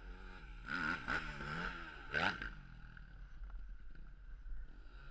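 Dirt bike engine running, blipped twice as the bike is turned round: a longer rev about a second in and a short sharp one about two seconds in.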